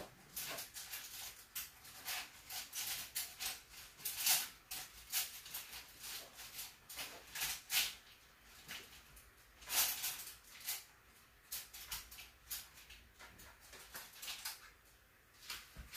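Eating pasta salad from a small plate with a fork: scattered soft clicks and scrapes of the fork on the plate, with louder ones around four seconds and ten seconds in.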